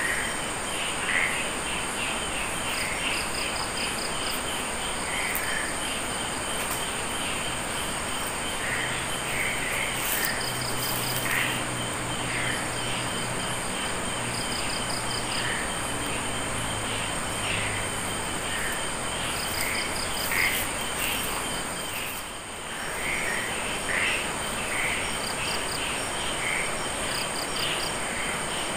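Chorus of crickets and other insects, with frogs calling: a steady high-pitched drone, short trilled bursts repeating every couple of seconds, and scattered brief chirping calls.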